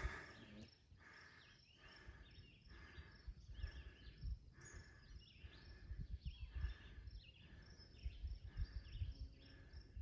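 Footsteps walking steadily along a mowed grass path, a soft thud about every two-thirds of a second, with birds chirping in the background.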